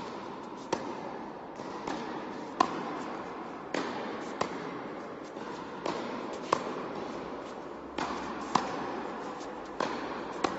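Tennis ball rally in an indoor hall: sharp racket strikes and ball bounces, about one a second, each followed by a short echo.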